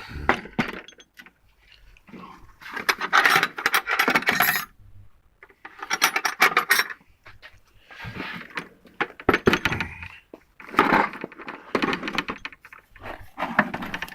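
Metal hand tools clinking and rattling against each other in a toolbox, in several short bursts of clatter.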